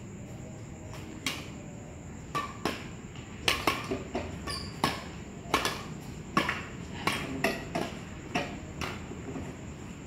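Badminton rackets striking a shuttlecock during a rally, heard as sharp, irregular knocks and clicks. They begin about a second in and come thick and fast from about three and a half seconds, mixed with other small knocks from play on the court.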